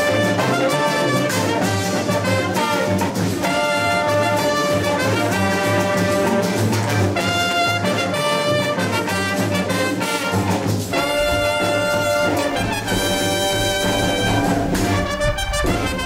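Instrumental background music: a melody of held notes over a steady bass line.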